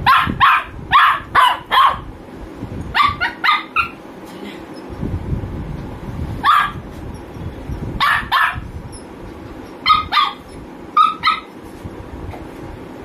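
Shih Tzu barking in short, sharp barks: a quick run of about five at first, then pairs and single barks every second or two. The dog is begging for a share of food.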